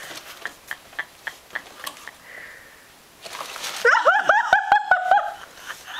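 Light taps and scrapes from a cardboard shoebox being handled with a cat moving inside it, in quick irregular clicks. About four seconds in, a person breaks into high-pitched, rapid bursts of laughter.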